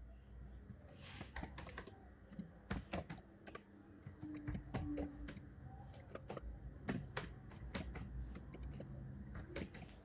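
Typing on a laptop keyboard: faint, irregular key clicks at an uneven pace, starting about a second in.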